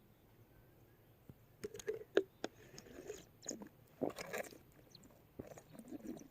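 A person biting and chewing crunchy food close to the microphone. After a quiet first second or so, irregular crunches and clicks follow.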